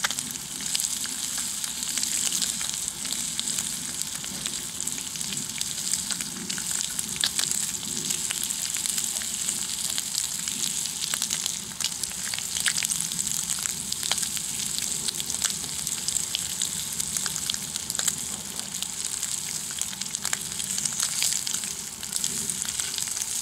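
Bacon frying in a pan over a wood fire: a steady, high sizzle with frequent small pops and crackles.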